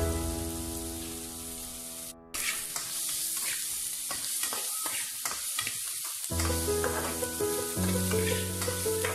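Chopped onion, lemongrass and chili sautéing in a metal wok, sizzling, while a metal ladle stirs and scrapes the pan with short clicks. Background music fades out about two seconds in and comes back about six seconds in, over the sizzling.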